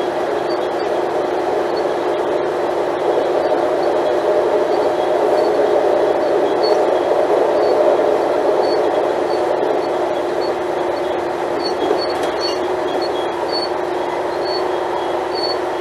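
Diesel engine of an Alstom Coradia LINT 41/H diesel multiple unit running, a steady drone with one constant tone.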